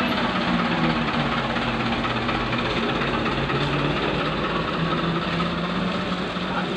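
Diesel engine of a loaded Mitsubishi light dump truck running at low revs as the truck creeps forward, with a steady low hum that dips slightly in pitch partway through.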